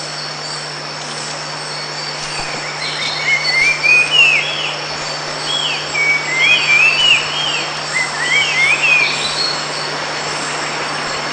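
Forest ambience: insects droning steadily at a high pitch over a low steady hum, while a bird sings about three runs of short, quickly rising and falling whistled notes in the middle.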